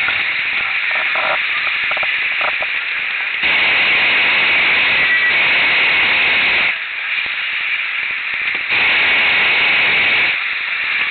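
Hot air balloon's propane burner firing twice, a loud steady hiss that starts and cuts off abruptly: a burn of about three seconds a few seconds in, then a shorter one near the end, over a constant lower hiss.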